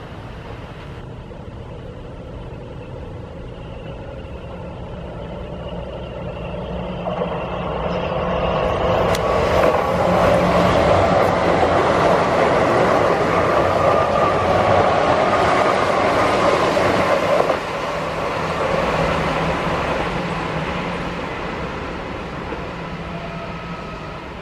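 Keihan electric commuter train running past on the tracks: wheel-and-rail noise with a steady motor whine, building up as it approaches and loudest in the middle. It drops suddenly about two-thirds of the way through, then fades away.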